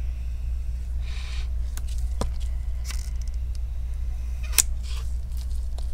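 The battery's adhesive pull-tab strip in an iPhone 7 Plus being slowly stretched out, giving a few faint ticks and crackles. The sharpest tick comes a little past the middle. A steady low hum runs underneath.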